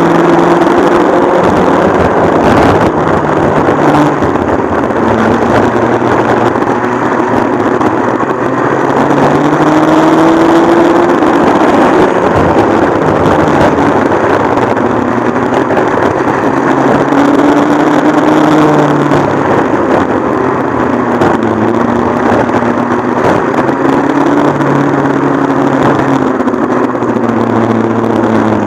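Modified McCulloch MC-49 two-stroke kart engine running hard at racing speed. Its pitch rises and falls several times as it accelerates and backs off through the laps.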